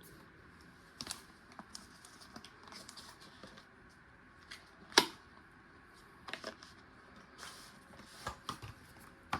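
Scattered light clicks and taps from a hand ratchet being handled, with one sharper click about five seconds in.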